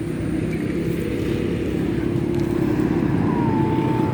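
An engine running steadily, growing gradually louder.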